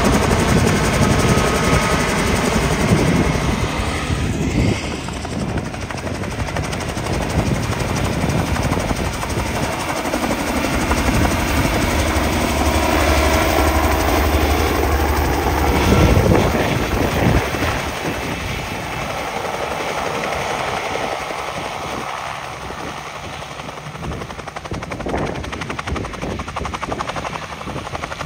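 Helicopter running, its rotor beating steadily; it is loud for the first half and grows quieter after about 17 seconds.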